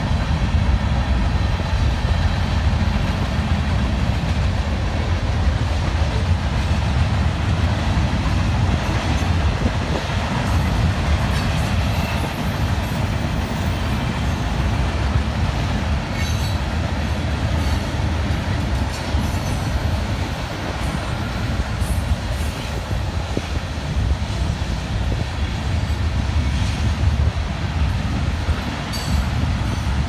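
Manifest freight train's cars rolling past steadily, the steel wheels on the rails making a continuous rumble with a few faint clacks.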